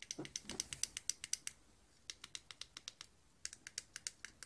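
Buttons on the click face of a fidget cube pressed over and over: a rapid run of small clicks, several a second, in three bursts with short pauses between.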